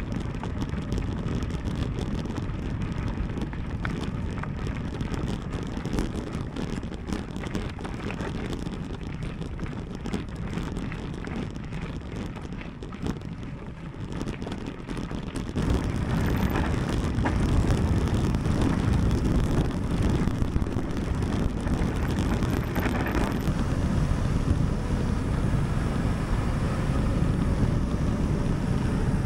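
Wind rushing over a bike-mounted or helmet camera's microphone while riding a mountain bike at speed, a steady low rumbling hiss that gets louder about halfway through.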